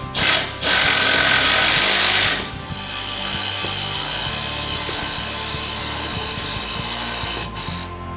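A power tool running in two spells: a short loud burst about a second in, then a longer, steadier and quieter run that stops near the end, with background music underneath.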